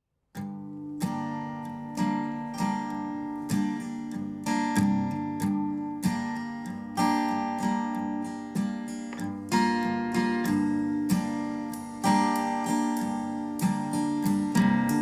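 Acoustic guitar music: picked and strummed chords with a steady pulse, starting just after a brief moment of silence at the very beginning.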